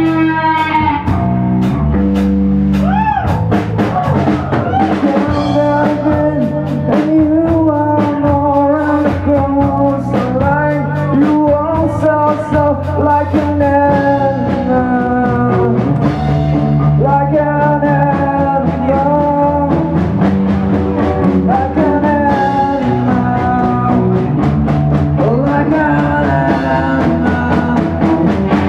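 Live grunge rock band playing: a singer holding long, wavering notes over electric guitar and a steady drum beat.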